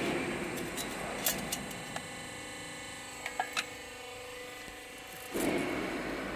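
Steady hum of workshop machinery with a few light metallic clicks and taps from the steel C-profiles and tape measure being handled. About five seconds in, a louder rushing machine noise with a low hum starts.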